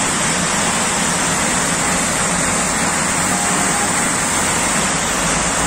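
Steady rushing noise of a stream of washed salt pouring from above onto a pile, with no break or change.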